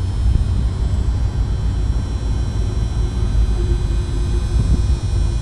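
Scania 450's electric-hydraulic cab-tilt pump running as it builds pressure before the cab starts to tilt, under a steady low rumble.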